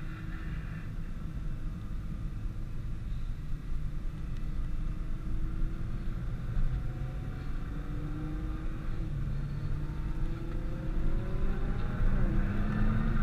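Nissan GT-R driving, with a steady low rumble of engine and road; the engine note climbs gradually through the second half as the car speeds up.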